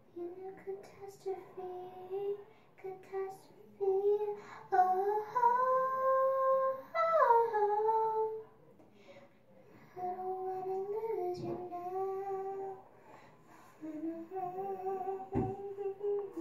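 A girl humming a wordless tune in phrases of held notes, rising and then dropping in pitch about five to seven seconds in, with short pauses. There is a single knock near the end.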